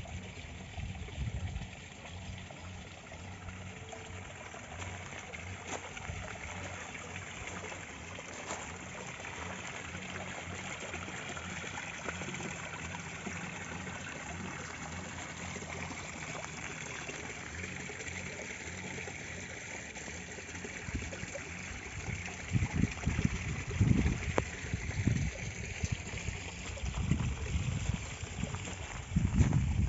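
Water pouring from a spout into a small garden fish pond: a steady trickle and splash. In the last third, louder low bumps and rumbles on the microphone come in over it.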